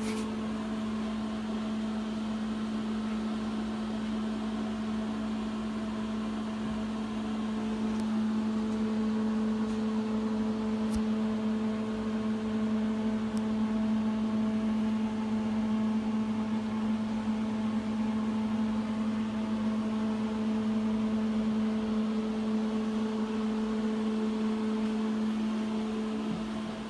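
Steady mechanical hum at one constant low pitch, growing slightly louder about eight seconds in.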